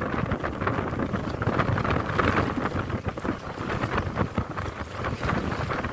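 Strong wind buffeting the microphone, mixed with choppy waves splashing and slapping against a small wooden fishing raft in a rough sea, with irregular short splashes throughout.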